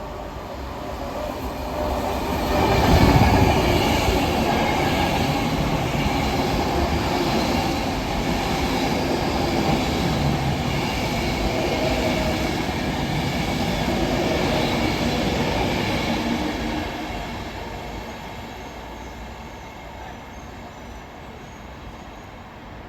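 A train passing through a station. Its rumble swells sharply about two seconds in, runs on loud with a faint high whine in it, then dies away over the last few seconds.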